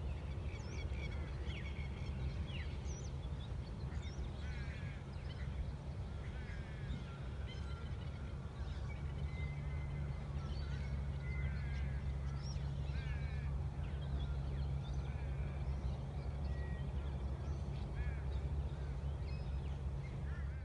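Many birds calling at once, a dense chorus of short chirps and chattering calls, over a steady low rumble.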